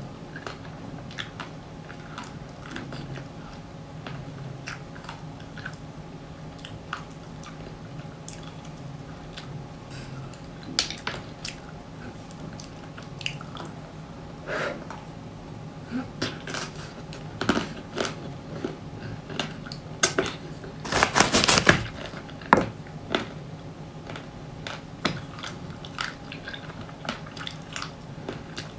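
Close-miked biting and chewing of homemade ice cream bars in a thick, crispy purple coating, with sharp crackles as the hard shell breaks between the teeth and softer chewing of the ice cream inside. The loudest run of crunching comes about three-quarters of the way through, over a faint steady hum.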